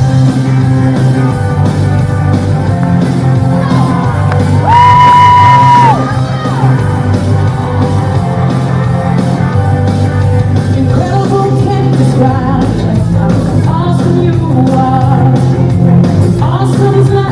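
Gospel song with a singing voice, played loud through the hall's speakers. About five seconds in, one long high note is held for just over a second, the loudest moment.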